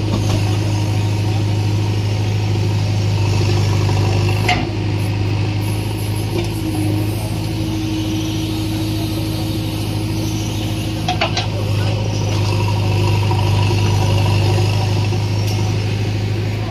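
JCB 3DX backhoe loader's diesel engine running steadily as the backhoe arm digs. A higher steady hum joins for a few seconds in the middle, and there are two sharp knocks, about four and eleven seconds in.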